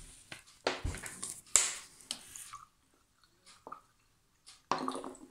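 Vinegar being poured from a plastic bottle into a small glass jar: a few short bursts of bottle-handling and pouring noise, with a quiet stretch of about two seconds before one more burst near the end.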